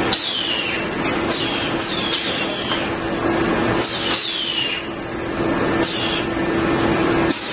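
Plywood DD edge-trimming saw line running: a steady machine noise with a constant hum that cuts off near the end, and several short high whistles that fall in pitch.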